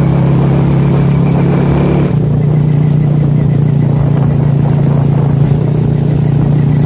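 Small motorcycle engine running steadily while riding along the road, with rushing wind noise. The engine note shifts slightly about two seconds in.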